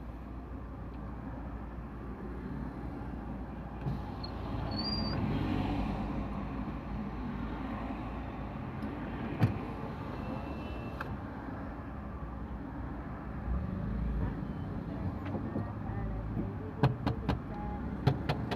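Car engine idling amid slow traffic, heard from inside the car's cabin: a steady low rumble, with a single click about halfway and a few sharp clicks near the end.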